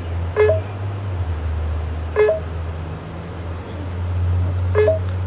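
Three short two-note electronic beeps from a drive-thru ordering kiosk's touchscreen, each stepping up in pitch, about two seconds apart. A car idles underneath with a steady low hum.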